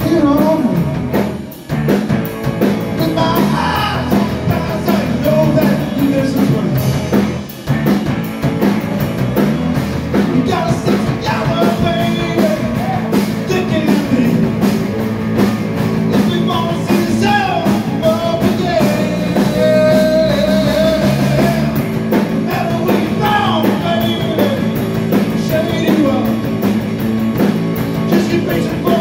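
Live rock band: a man singing through a microphone over amplified electric guitar and a drum kit, with two brief breaks in the music about one and a half and seven and a half seconds in.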